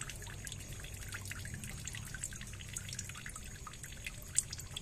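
Water trickling and dripping over the rocks of a shallow ditch: a steady run of small drips, with one louder drip near the end.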